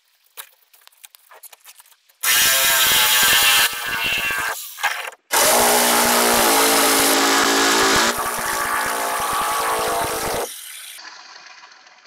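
Handheld electric power tool cutting or grinding on the boat's fiberglass structure. It starts about two seconds in, stops briefly near the middle and restarts, running loud with a steady motor pitch, then winds down near the end.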